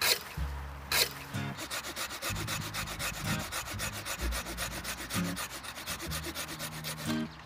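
Folding pruning saw cutting through a green tree trunk: a quick, even run of rasping strokes of the coarse-toothed blade through the wood.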